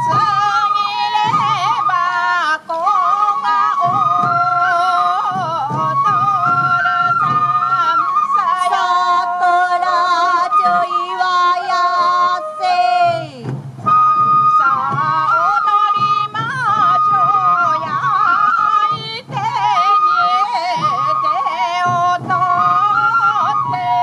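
Sansa odori festival music: sansa daiko drums strapped to the dancers beating under a bamboo flute melody, with a sung line.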